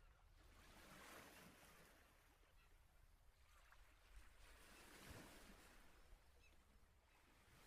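Near silence: faint hiss that swells and fades a few times.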